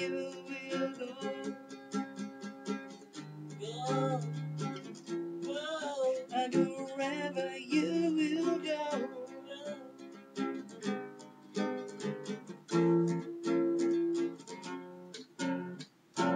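Acoustic guitar strummed in a steady rhythm, with a man singing over it for much of the time.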